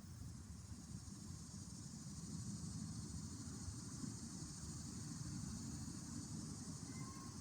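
Low rustling rumble over a steady high hiss, with one short, soft peep from a Pilgrim goose near the end.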